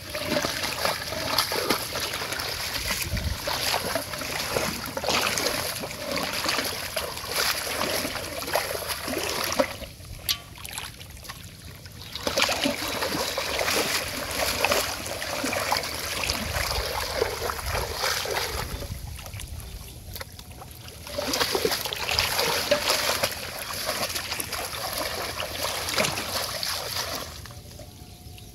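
Water splashing as a person wades through shallow, weed-choked water, in three long stretches separated by two short quieter pauses.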